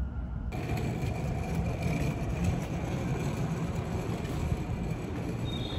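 Steady rumbling noise on a Shinkansen station platform, with a low rumble under a spread of hiss. A high steady tone begins near the end.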